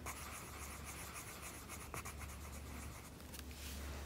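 A red marker scratching back and forth on paper, colouring in a small circle on a worksheet with quick faint strokes.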